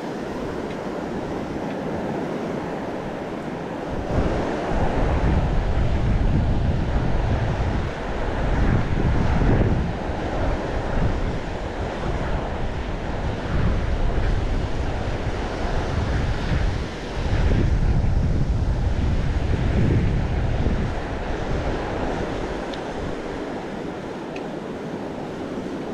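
Wind buffeting the microphone in irregular gusts as the bicycle rides along, over a steady rushing noise. The gusts come and go through most of the stretch and ease off near the end.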